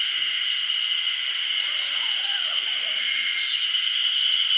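Insect chorus: a steady, high, unbroken shrill.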